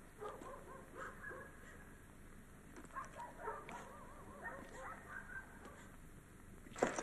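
Faint, scattered calls of farmyard birds. Just before the end, a flock of geese breaks in, honking loudly.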